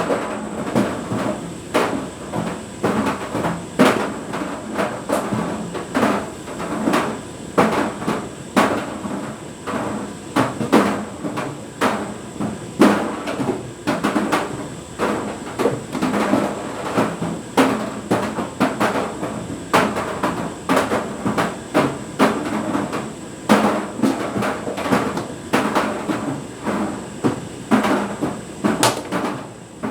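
A can of Prime energy drink tumbling in a rotating tumble dryer drum on a refresh cycle, knocking against the drum about once or twice a second at an irregular beat. A steady high whine sits underneath.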